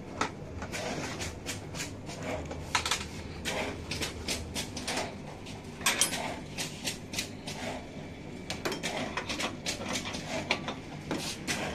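Metal hand tools and small parts clinking and clattering as they are handled at a toolbox and spanners are picked up. Many irregular sharp clicks, the loudest about six seconds in, over a faint low hum.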